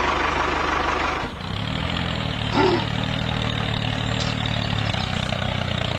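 Tractor engine running, then settling into a steady low idle about a second in.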